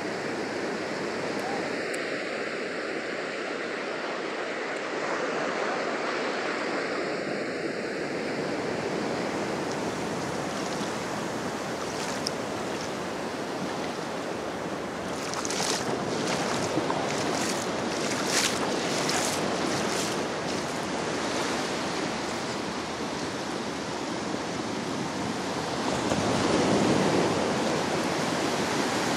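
Ocean surf washing in over a flat sandy beach, a steady hiss of breaking waves and shallow wash, with wind buffeting the microphone. A patch of brief crackles comes in the middle, and a louder wash swells near the end.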